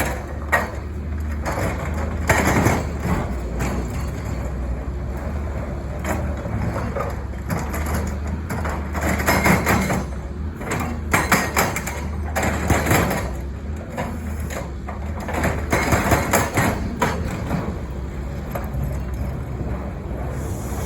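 Caterpillar 320 excavator's diesel engine running steadily, with several bursts of rapid hammering and clattering from its hydraulic breaker striking rock or concrete.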